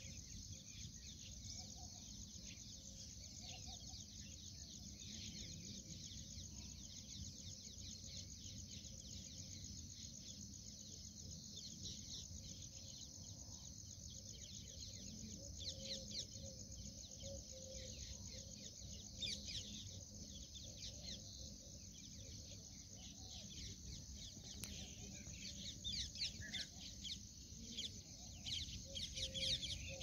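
Faint outdoor ambience: birds calling, likely including domestic fowl clucking, over a steady high-pitched drone, with the calls growing busier near the end.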